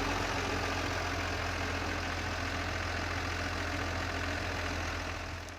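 New Holland tractor's diesel engine running steadily, fading out near the end.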